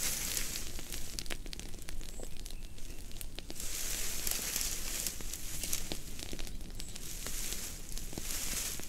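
Open fire crackling with many sharp pops, over a hissing that swells and fades every few seconds.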